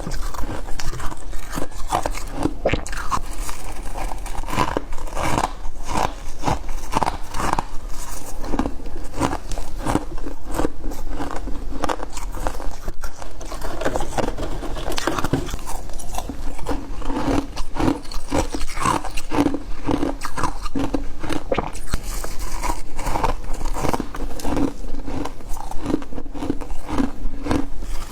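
Close-miked chewing of soft freezer frost: steady crunching, several crunches a second.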